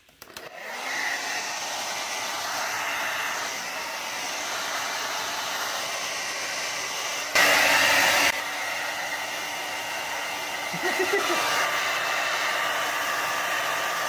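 Revlon 1875 ionic ceramic hand-held hair dryer switched on just after the start and blowing steadily, with a louder blast for about a second a little past halfway.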